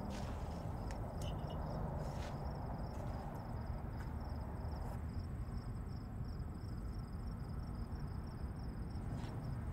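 A cricket chirping in a steady, even rhythm over a low background hum.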